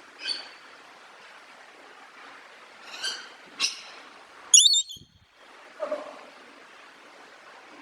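Parrot giving about five short squawks over a steady hiss. The loudest, a shrill screech, comes just past halfway, and the sound cuts out for a moment right after it.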